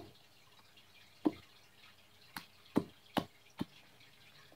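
Squeeze bottle of glitter glue being squeezed into a bowl: about six short, wet pops, unevenly spaced, as glue and air spurt from the nozzle.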